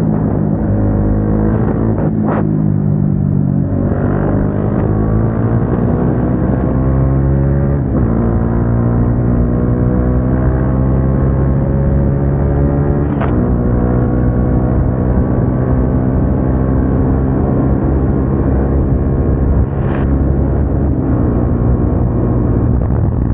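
Single-cylinder motorcycle engine with an aftermarket exhaust, ridden hard: its pitch climbs steadily under acceleration, broken by a few quick gear changes, then holds at a steady cruise.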